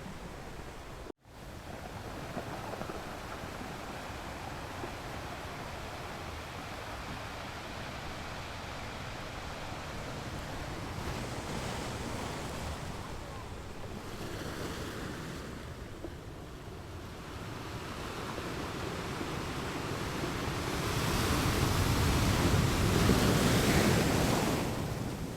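Ocean waves washing onto a beach in a steady surf hiss, swelling louder as a bigger wave comes in near the end. The sound cuts out for a split second about a second in.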